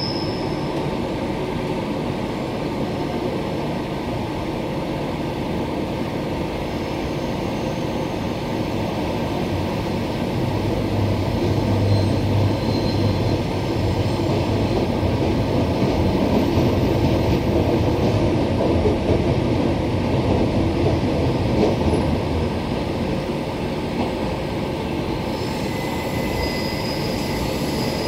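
Cabin noise inside a Queensland Rail EMU electric multiple unit running at speed: a steady rumble of wheels on the track. A faint high wheel squeal comes in near the end.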